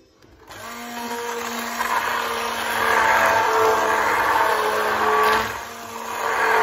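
Philips hand blender running submerged in a pot of cooked lentil soup, its motor whirring steadily as it purées the lentils. It starts about half a second in, gets louder, dips briefly near the end and picks up again.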